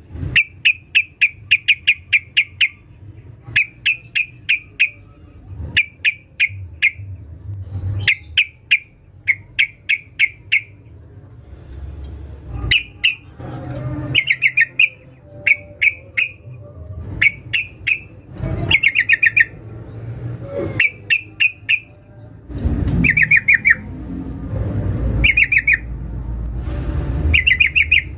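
Yellow-vented bulbul (trucukan) calling: quick runs of four to eight sharp chattering notes, repeated every second or two, the female's call used as a lure to draw a male. A low rumble comes up in the background about halfway through.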